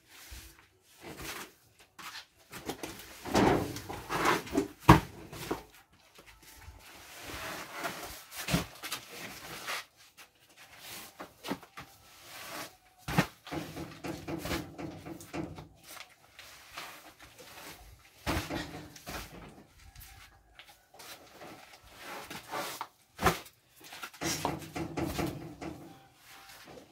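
Paper sacks of cement being thrown down and stacked one on another: irregular dull thuds, with the paper bags rustling and scraping.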